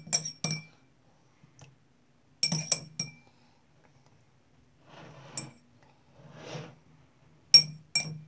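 A metal spoon clinking against the bowl while stirring PVA-glue slime that is firming up with borax activator: sharp, briefly ringing clinks in small clusters, with softer stirring sounds in between.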